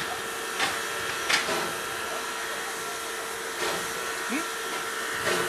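Steady hiss of escaping steam from a steam locomotive, with a faint steady hum under it and four short knocks spread through it.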